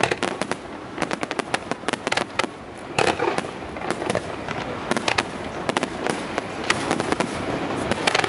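Aerial fireworks bursting: a dense, continuous run of sharp bangs and crackles, with a few louder reports about three seconds in and again around five and seven seconds.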